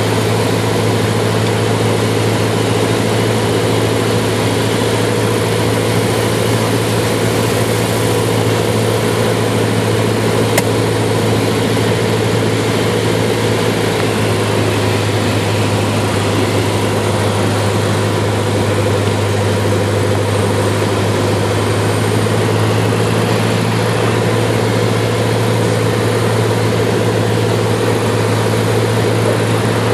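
Cessna 172's piston engine and propeller running at a steady drone, heard inside the cockpit.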